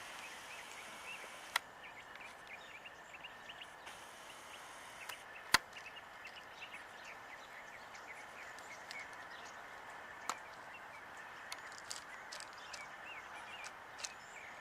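Faint, scattered high chirping from a flock of small birds in a tree, which the filmers think may be cedar waxwings. Three sharp clicks cut through it, about one and a half, five and a half and ten seconds in, the middle one the loudest.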